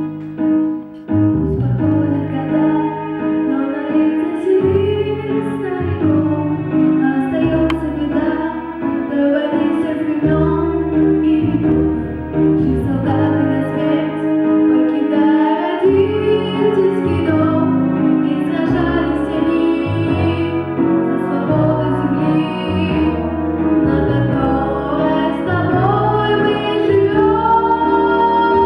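A female solo voice singing a song in Russian over a piano-led backing track with a steady bass line.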